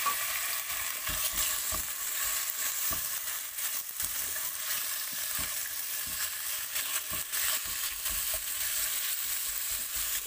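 Diced chicken sizzling in hot oil with browned onion as it is sautéed in a frying pan, a steady hiss. The spoon stirring it knocks and scrapes against the pan now and then.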